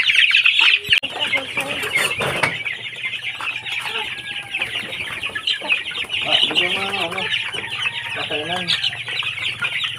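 A flock of Barred Plymouth Rock chickens at feed: hens clucking now and then over a constant dense high peeping of chicks. There is a single knock about two seconds in.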